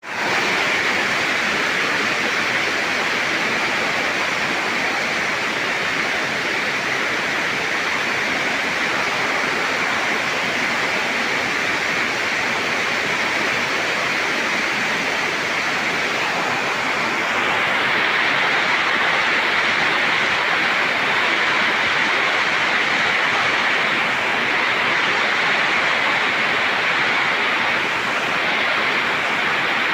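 Steady heavy rain falling, a dense even hiss that fades in at the very start and grows slightly louder about halfway through.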